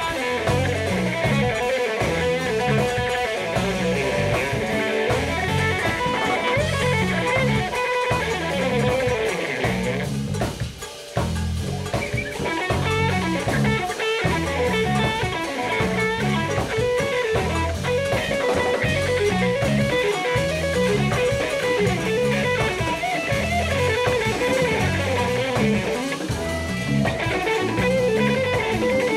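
Live jazz-funk band playing an instrumental groove, with drum kit and guitar up front. About ten seconds in the band briefly drops out for around a second, then comes back in.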